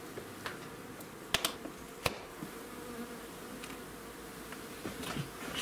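Honeybees buzzing in an open hive, a steady hum, with two sharp clicks of wooden hive frames being handled about a second and a half and two seconds in.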